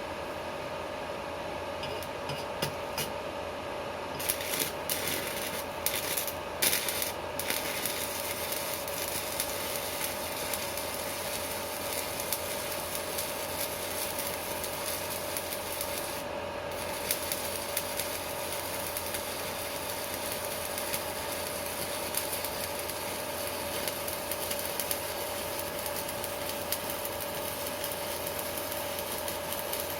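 Stick-welding arc hissing and crackling steadily, with a few sharp cracks a few seconds in and a steady tone underneath. The Strad 160KS inverter welder is running with its casing off, and without the casing it makes no hum: only the arc is heard.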